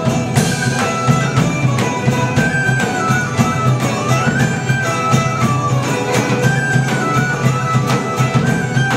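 Traditional folk band playing an instrumental passage: violin, acoustic guitar and Macedonian tambura over a steady hand-drum beat.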